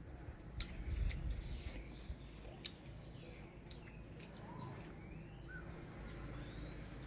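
A few sharp clicks and crinkles of a plastic water bottle being handled and opened, followed by the bottle being drunk from. Short bird chirps sound a few times in the background around the middle.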